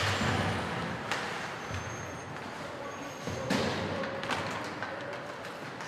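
Ice hockey play in an indoor rink: a loud crack of stick, puck or boards right at the start, then three more knocks, over a steady background of skating and arena noise.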